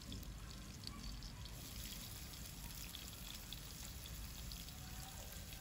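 Faint, steady sizzle of oil frying in a kadhai, with light scattered crackles, as garlic, curry leaves and chopped onion cook.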